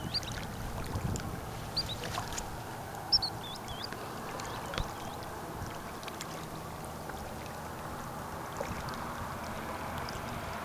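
Small waves lapping steadily at the water's edge, with a little wind on the microphone near the start. A few short, high chirps from birds come in the first few seconds.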